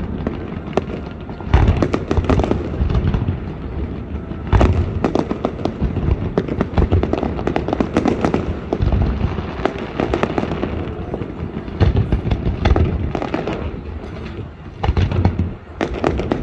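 Fireworks display going off continuously: heavy booms every few seconds with dense crackling and popping between them.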